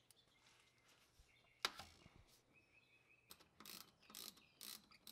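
Ratchet loosening a hose clamp on the engine's intake tubing, heard faintly: a single sharp click about a second and a half in, then from about three seconds in a run of short ratcheting strokes, roughly two a second.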